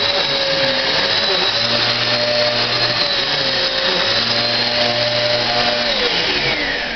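Zanussi AirSpeed Light vacuum cleaner running with a steady, extremely loud motor whine. Near the end the whine falls in pitch and fades as the motor runs down.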